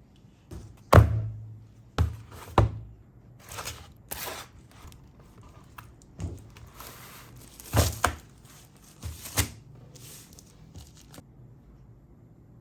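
Hard knocks, clicks and rustling of a smartphone and small tools being handled on a work surface, irregularly spaced, the loudest knock about a second in.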